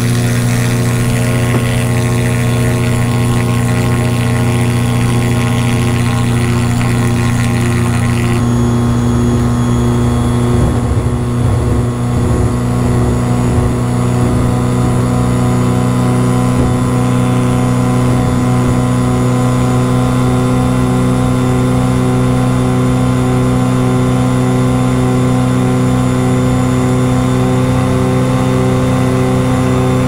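Self-launching glider's engine and propeller running at steady full takeoff power, one constant droning note. A rushing hiss over it stops about eight seconds in.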